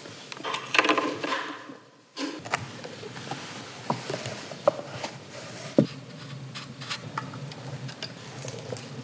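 Studio gear being handled: a rushing noise for about two seconds that stops abruptly, then scattered sharp clicks and knocks over a low steady hum.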